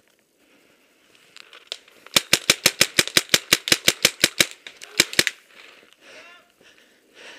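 Paintball marker firing a rapid string of about fourteen shots at roughly six a second, then two more shots a moment later.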